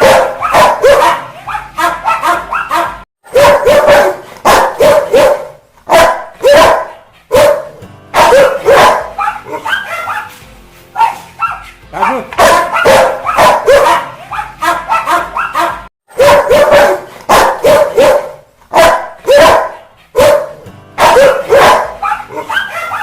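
Rottweiler barking angrily in rapid volleys of several loud barks, with short pauses between volleys.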